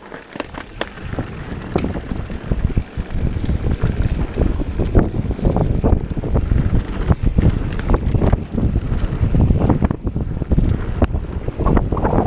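Wind buffeting the microphone and tyre rumble of a Santa Cruz Hightower 27+ mountain bike riding fast downhill on a dirt trail, with many sharp clatters and knocks from the bike over rough ground. The rushing noise builds over the first two seconds as the bike picks up speed.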